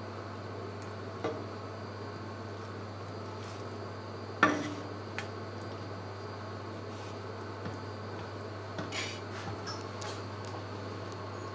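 Kitchen knife knocking and clinking against a wooden cutting board and steel counter while raw fish is sliced for sashimi. There are a few sharp knocks, the loudest about four and a half seconds in with a short ring, and light clicks near the end, over a steady low hum.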